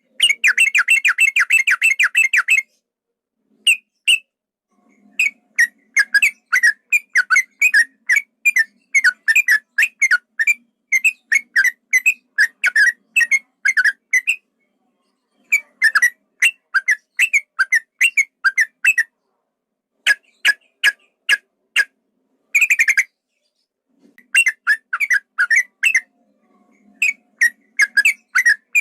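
Yellow-vented bulbul (trucukan) singing its long, rapid 'ropel' song: phrases of quick, bubbly whistled notes repeated several times a second, broken by short pauses, with a dense chattering burst at the start and another about two-thirds of the way through.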